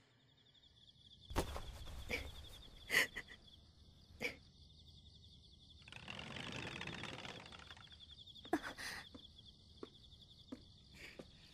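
Night-time insect chirping, a steady high pulsing trill such as crickets make, with a few soft clicks and a brief rustle mixed in.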